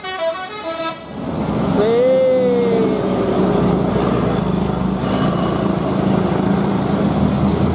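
A bus's telolet basuri musical horn finishing its tune of quick stepped notes about a second in, then a single tone that rises and falls. Then the bus's engine runs loud and steady.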